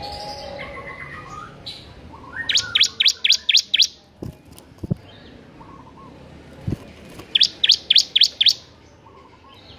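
Bar-winged prinia (ciblek) singing its rapid 'ngebern' song: two bursts of about six loud, sharp, high notes in quick succession, a few seconds apart, with softer twittering between. A few dull thumps sound between the bursts.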